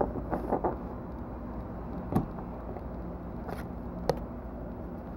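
Trading cards being handled and shuffled: a few brief rustles and light taps, over a steady low hum of room noise.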